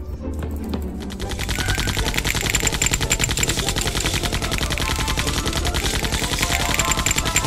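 Rapid machine-gun-style firing sound effect for a LEGO brick launcher spraying bricks, many shots a second, starting about a second in.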